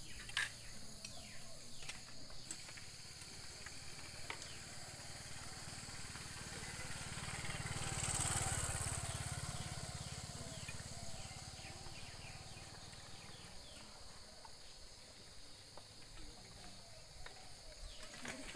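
Outdoor ambience with a steady high chorus of insects and a few light metallic clinks of serving spoons against metal alms bowls. A rushing noise swells and fades around the middle.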